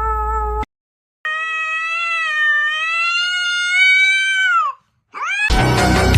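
A cat's long, drawn-out meow lasting about three and a half seconds, rising slightly and then dropping at the end, with a short rising call just after it. It comes after a held, wavering call that cuts off abruptly, and loud music starts near the end.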